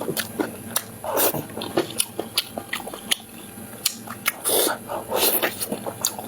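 Close-miked eating: a person biting and chewing food with wet mouth clicks and smacks, and a few longer, louder wet bursts about a second in and near the end.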